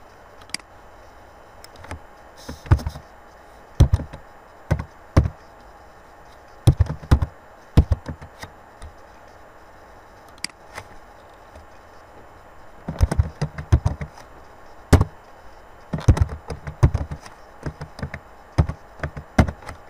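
Computer keyboard and mouse clicking: scattered single clicks, then runs of quick keystrokes about two-thirds of the way in and again near the end.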